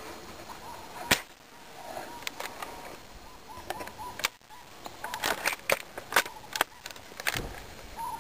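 Mauser SR bolt-action spring airsoft sniper rifle firing a single shot, a sharp crack about a second in. Later comes a run of quicker clicks and knocks.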